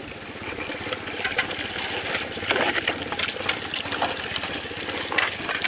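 Gold Fox trommel running: rocks clatter and knock as they tumble through the spinning drum and drop out, over splashing wash water and the steady running of a small engine.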